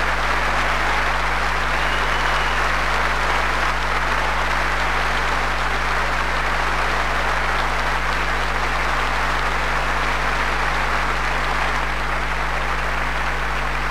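Large concert audience applauding, a dense and even clapping that holds steady throughout.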